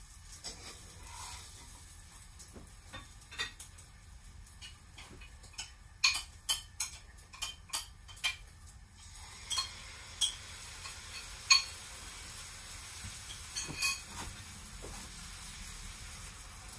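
Kitchen dishes and utensils clinking and knocking as food is handled, with a quick run of sharp clicks about six to eight seconds in. From about nine seconds a faint steady hiss sits under a few more knocks.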